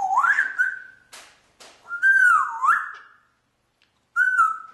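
Pet parrot whistling in three phrases, each a clear tone sliding up and down in pitch. Two short hissy sounds fall between the first and second phrases, and the last phrase is brief.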